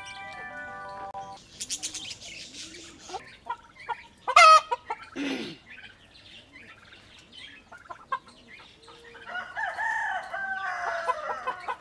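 Birds calling: a stretch of high chirping chatter, a loud short squawk about four seconds in, and a longer wavering call near the end. Music cuts off about a second in.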